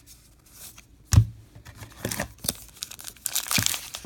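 A single thump about a second in, then scattered clicks of handling, turning into crinkling and tearing as a baseball card pack's wrapper is torn open near the end.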